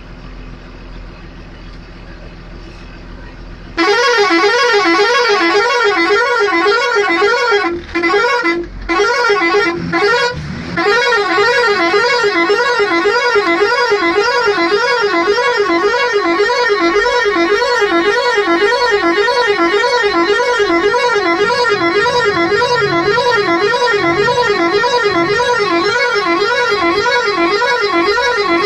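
A vehicle's engine idles, then about four seconds in a loud warbling air horn starts, its pitch wavering up and down about three times a second. It cuts out briefly a few times, then sounds without a break. The horn is blown to drive off an elephant sitting on the road.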